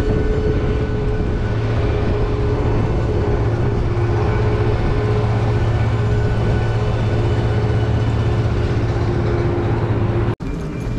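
Steady machine drone of aircraft and ground equipment on an airport apron: a low, constant hum with a few steady higher tones, cutting out for an instant near the end.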